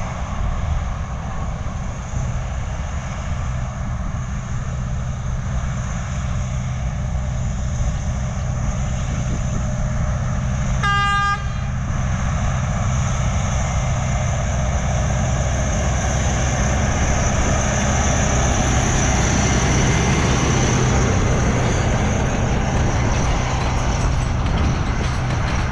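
Narrow-gauge sugarcane train: its diesel locomotive runs steadily, and the horn gives one short blast about halfway through. Loaded cane bins then roll past, and the wheel-and-rail noise builds and stays loud.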